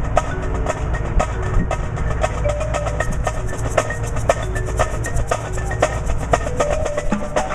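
Marching drumline of snare and bass drums playing a practice exercise: dense, fast, continuous drum strokes with short pitched drum notes mixed in.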